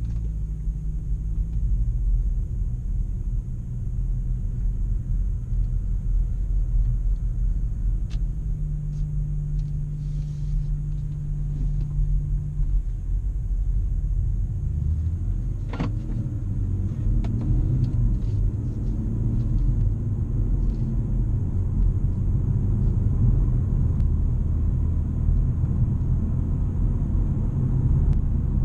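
BMW M240i's 3.0-litre turbocharged straight-six heard from inside the cabin, running at low revs as the car pulls away and drives on. A sharp click about halfway, after which the engine note rises and falls with the revs.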